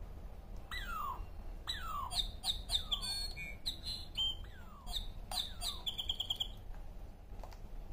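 Recorded birdsong played by the pop-up sound book's bird button through its small speaker: a run of quick chirps that each slide downward, then a short fast trill near the end.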